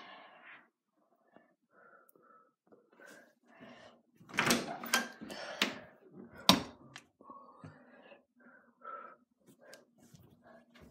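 Cabinet door opened, with a few sharp knocks and clacks about four to six and a half seconds in, the loudest near the end of that run, amid faint handling sounds.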